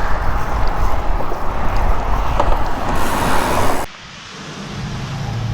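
Wind rushing over the microphone of a moving bicycle, cut off suddenly near the end and replaced by a quieter low steady hum.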